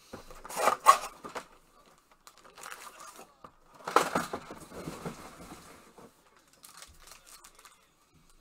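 Cardboard box of Panini Phoenix football cards being torn open and unpacked: a few sharp ripping and crinkling noises, the loudest just after the start and about four seconds in, with lighter rustling between.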